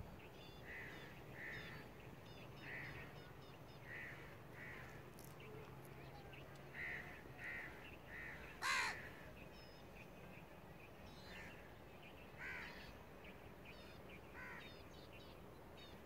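Crows cawing, a dozen or so short separate caws a second or more apart, with one louder, closer caw about nine seconds in.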